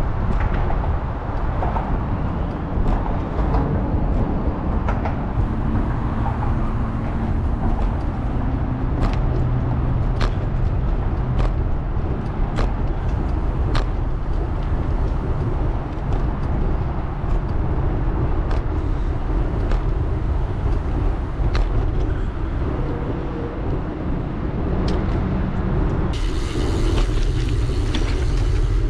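Riding a bicycle along a trail bridge: steady low rumble of wind on the microphone and tyres rolling, with faint clicks about once a second. Near the end the rolling noise turns hissier.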